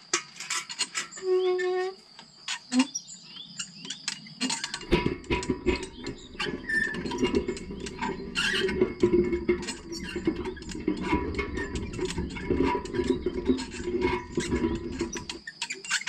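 Hand-cranked well windlass paying out the line as a metal bucket is lowered down the well shaft: a rapid run of clicks and rattles, with a short squeak about a second and a half in and a low rumble joining from about five seconds in until just before the end.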